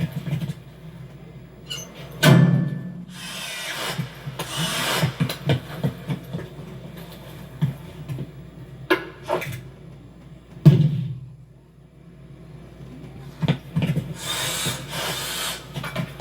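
Animated-film sound effects with no dialogue: a busy sequence of thuds, scuffs and rubbing, with a heavy hit about two seconds in and another just after the middle, and two long bursts of hissing noise.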